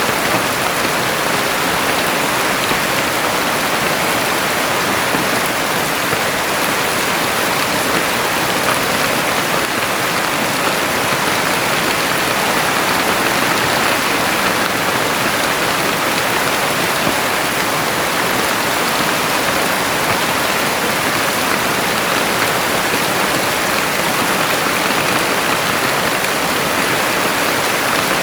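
Heavy rain falling steadily, an even dense hiss of rain on the ground and surfaces.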